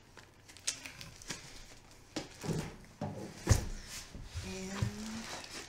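Books and audiobook cases being handled and set down on a table: scattered soft knocks and rustles, with a heavier thump about three and a half seconds in.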